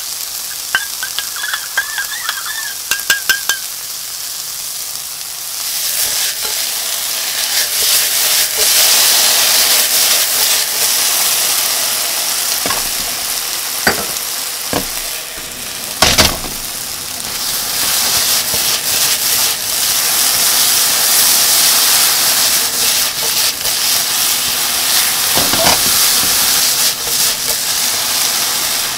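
A spoon clinking a few times in a small stainless-steel cup as the liquid seasoning is mixed, then loud sizzling that swells about five seconds in as the seasoning goes into the hot frying pan with sliced bitter melon and garlic. A spatula stirs the stir-fry and knocks against the pan a few times midway.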